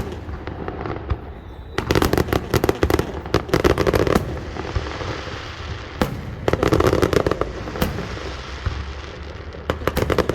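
Fireworks display: rapid clusters of sharp cracks and bangs in three volleys, about two seconds in, about six seconds in and near the end, over a steady low rumble.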